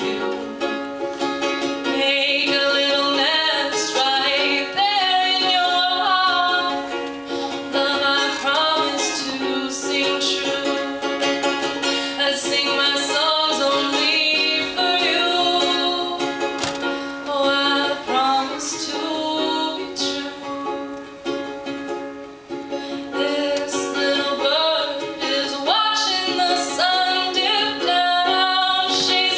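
Ukulele strummed in a steady song accompaniment, with a woman singing a melody over it.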